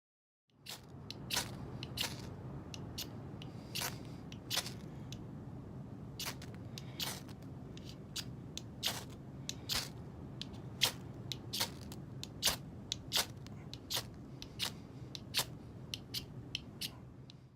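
Ferrocerium fire steel struck over and over with a scraper, some two dozen sharp, irregular scrapes, while trying to light a fire; the rod is not throwing a good spark. A steady low rumble runs underneath.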